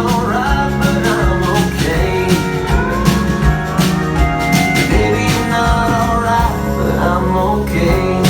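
Country-rock band music: a lead melody bends and slides in pitch over steady bass and drum beats.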